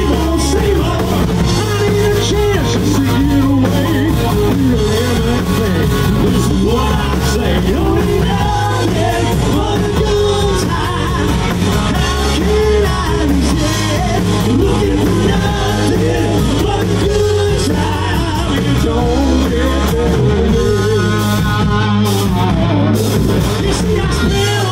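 Live rock band playing loud: a lead singer over distorted electric guitar, bass guitar and drums, with held low bass notes under the vocal line.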